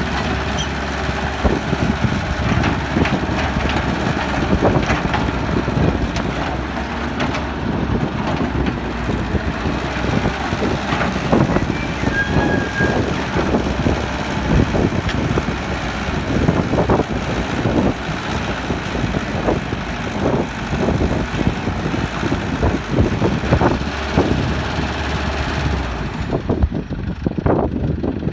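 Excavator working: its diesel engine runs steadily under load, with frequent knocks and clatter over the top.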